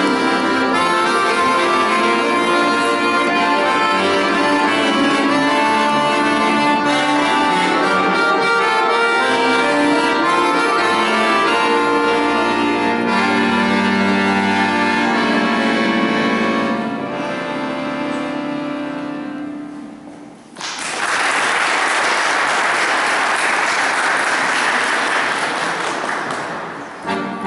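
Piano accordion playing a piece that ends on a long chord fading away, followed about twenty seconds in by roughly six seconds of applause; right at the end the accordion starts playing again.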